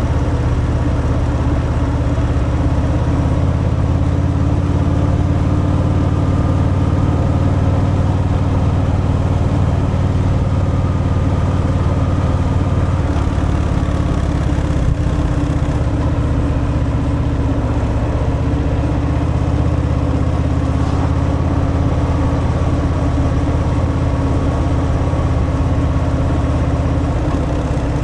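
Harley-Davidson Fat Boy V-twin on its stock exhaust, running at a nearly steady engine speed while the bike is ridden.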